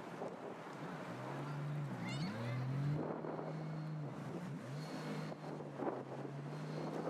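A low engine hum whose pitch dips and rises again several times, with wind buffeting the microphone.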